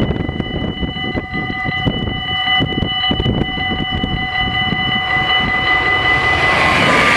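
Dutch level-crossing warning bells ringing steadily as a continuous metallic tone while the barriers are down. From about six seconds in, the rushing noise of an approaching Stadler FLIRT electric train grows louder over the bells.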